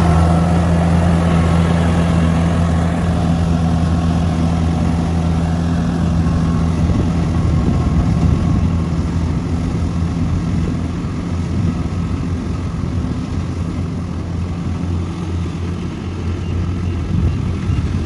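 Kubota DC70 rice combine harvester's diesel engine running steadily with a low hum while harvesting, slowly growing fainter as the machine moves away.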